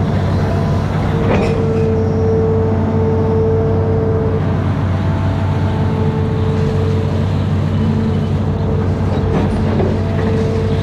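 Amphibious excavator's diesel engine running steadily, with a steady whine above it that breaks off twice and comes back.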